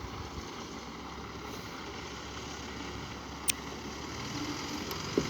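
Steady low drone of a heavy construction machine's engine running, with a sharp click about three and a half seconds in and a short knock near the end.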